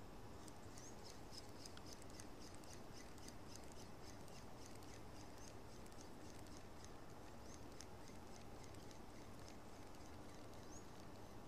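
Faint high-pitched chirping from small birds, several short chirps a second with a few sliding in pitch, over a low, steady outdoor background hiss.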